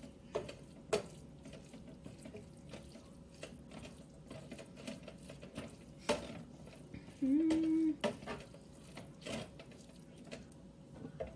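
A spoon stirring a thick, wet ground-beef and corn mixture in a pan, with a soft squelching and several sharp knocks of the spoon against the pan. About seven seconds in, a short hum rises and holds for under a second.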